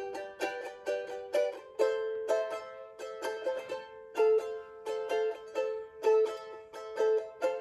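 Tahitian ukulele strumming chords in a steady rhythm, with no singing.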